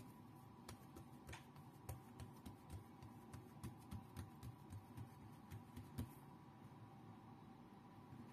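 Fingers pressing and patting a piece of chocolate bread dough flat on a wooden board: a run of soft taps, about three a second, that stops about six seconds in, the last tap the loudest. A faint steady hum runs underneath.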